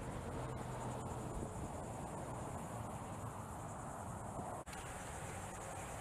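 Cicadas calling in the background, a steady high-pitched buzzing chorus.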